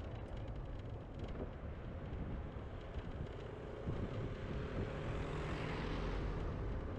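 Steady rumble of a moving scooter with wind on the microphone; an oncoming car passes about five to six seconds in, its tyre noise swelling and then fading.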